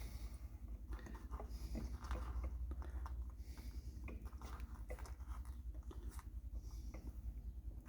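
Small parts of an electronics kit being handled: irregular light clicks and crinkling, as components and their packaging are sorted, over a low steady hum.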